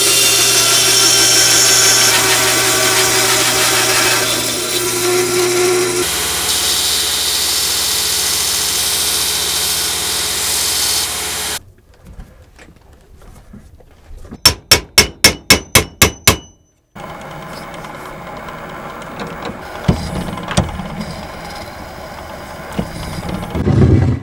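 Band saw cutting a copper bar, running loud and steady for the first half, with the pitch shifting once partway through. It stops, and then come about eight quick ringing metal-on-metal hammer taps. A saw then runs again, more quietly, with a few knocks.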